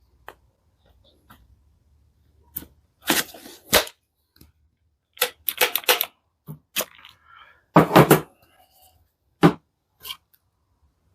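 Irregular sharp knocks and clicks, a dozen or so, some coming in quick clusters, with gaps of quiet between them.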